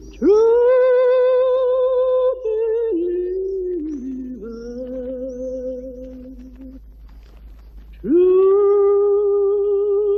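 A solo voice singing unaccompanied: a long held note with vibrato that swells in at the start, a few lower falling phrases, then another long note swelling in near the end.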